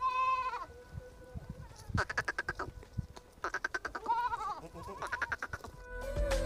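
Gaddi goats bleating, about four wavering calls a second or so apart. Music comes in near the end.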